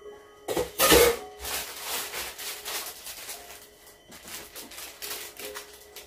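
Kitchen handling noises: a loud clatter about half a second in, then lighter knocks and rustles as things are moved about on the counter. Quiet background music runs underneath.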